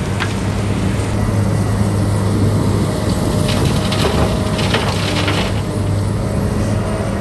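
Excavator's diesel engine running steadily, with a spell of crunching and scraping from about halfway through.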